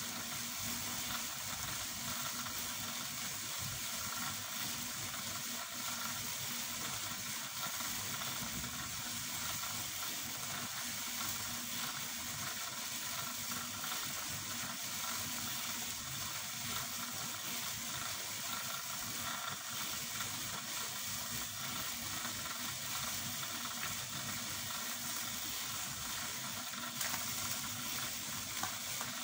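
Steady hiss of background noise, with a few faint crackles near the end.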